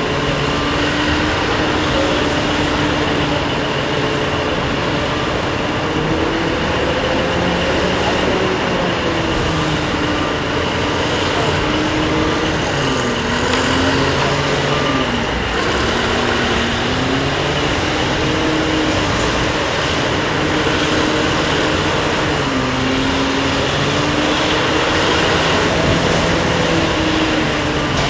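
Heavy mining machinery running steadily: a large power shovel digging and swinging while loading a coal haul truck, with diesel haul trucks running. A whining tone rises and falls over the steady drone as the machines work under changing load.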